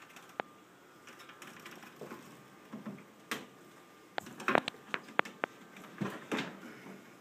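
A few light clicks and knocks from hands working at a pinball machine's wooden cabinet, with a quick run of sharp clicks about four to five seconds in.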